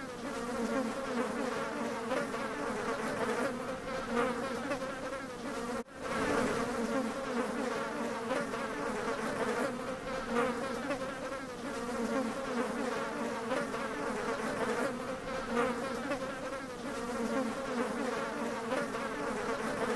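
Bees buzzing together in a steady, dense hum that wavers in pitch, cutting out for an instant about six seconds in.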